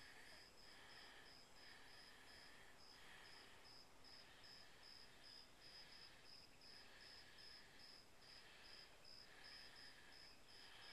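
Faint insect chorus: a high chirp repeating steadily about three times a second over a softer buzzing that comes and goes about once a second.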